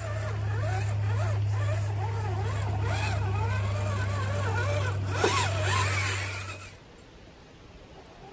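Electric motor and gear drive of an RC4WD Trail Finder 2 scale RC truck whining under a steady low hum, the pitch rising and falling with the throttle. About five seconds in it rises to its loudest, then it cuts off suddenly near seven seconds.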